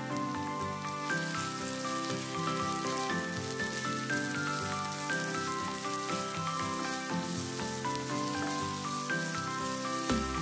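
Sliced onions sizzling in hot oil in a kadhai, a steady hiss that sets in about a second in, under background music with a melody.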